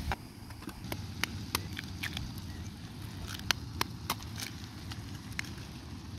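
Portable gas canister camp stove burning with a steady low rumble, with scattered sharp clicks and taps of a metal spoon and eggshells against the frying pan as eggs are cracked in.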